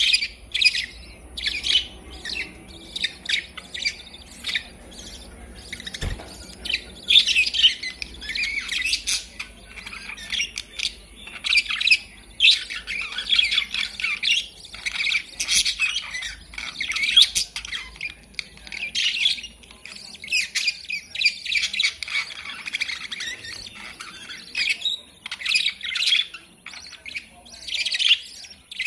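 Budgerigars chattering: quick, high chirps and squawks in repeated bursts, with short pauses between.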